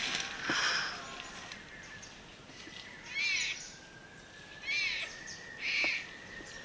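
Tiger cubs mewing: four short, high, rising-and-falling cries, one near the start and three in the second half, over a faint steady high-pitched whine.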